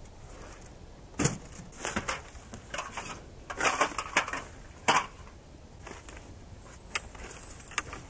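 Clatter and knocks of camp gear being handled and a small folding table being unfolded and set up: a string of irregular sharp knocks and clacks, the loudest about a second in and again about five seconds in.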